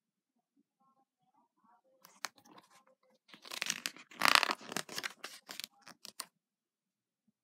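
Paper pages of a hardcover picture book being turned: rustling and flapping that starts about two seconds in, swells in the middle and ends in a few sharp snaps.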